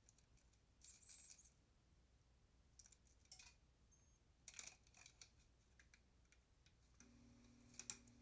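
Faint, scattered clicks and short scrapes of hand tools and metal parts being handled and bolted in an engine bay, with a faint low hum coming in near the end.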